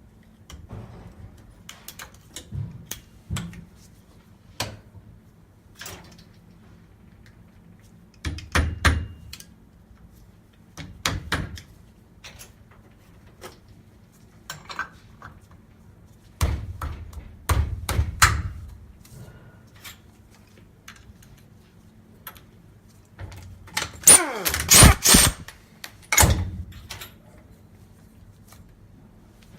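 Metal parts and hand tools knocking and clinking as an air-conditioning compressor's clutch and pulley are refitted, in scattered knocks with a few louder clusters. The loudest is a dense metallic rattle with some ringing near the end.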